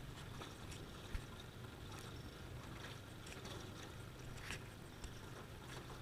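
Boat engine running slowly, a faint steady low hum, with a couple of light ticks.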